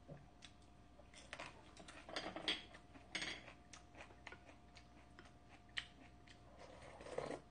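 Quiet eating sounds: bites and chewing of a fresh green pepper, with small scattered clicks of chopsticks and a spoon against bowls. A longer soft sound near the end as a spoonful of soup is taken.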